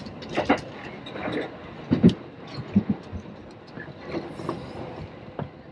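JR Yamanote Line electric commuter train running over the track, heard from inside the car at the front: a steady rumble with irregular clacks and knocks as the wheels cross rail joints and points.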